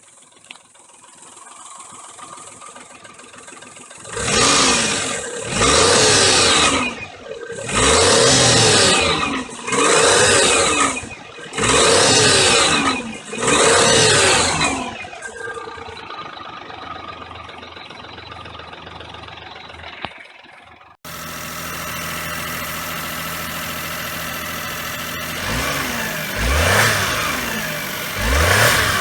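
Daihatsu Terios Kid's 660 cc three-cylinder engine idling and blipped about six times in quick succession, each rev falling back to idle, then idling again with a couple more revs near the end. It carries an abnormal knocking noise traced not to the engine itself but to a broken alternator mounting bolt letting the alternator knock.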